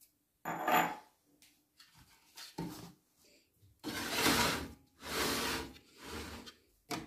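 Bread dough being rolled out on a wooden board: a series of rubbing, scraping sweeps, the two longest in the middle, then a short knock near the end.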